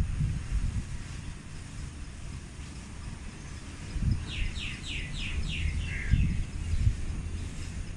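A bird calls a quick run of about seven short, falling notes about four seconds in, over low gusty rumbling. A steady low hum sets in near the end.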